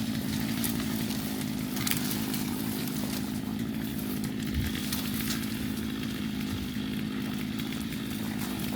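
Two-stroke chainsaw engine running at a steady speed.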